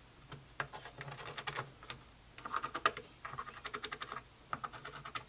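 Pencil tracing around a router base plate and its screw holes on plywood, heard as quick scratching strokes and small clicks in short irregular clusters.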